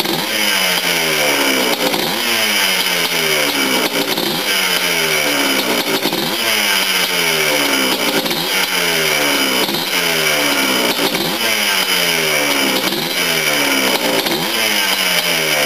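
Yamaha Blaster's single-cylinder two-stroke engine running on the stand, its revs rising and falling over and over about every two seconds as the throttle is varied, never left to idle. This is a freshly rebuilt engine warming up through its first break-in heat cycle.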